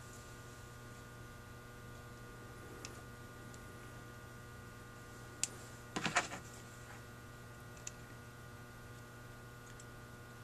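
Faint, steady electrical hum under a few light clicks and taps of small metal carburetor parts handled by hand, with the loudest short cluster of clicks and rustling about six seconds in.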